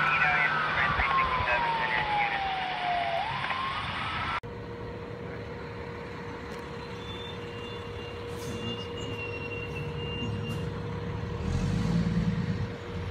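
A fire vehicle's wail siren sliding down in pitch and sweeping back up as the vehicle drives off, cut off about four seconds in. Then a fire engine's low engine rumble, with a steady hum, growing louder near the end as the engine starts to pull out.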